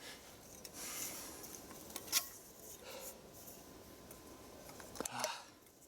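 Soft rustling and handling sounds, with a light click about two seconds in and another near the end.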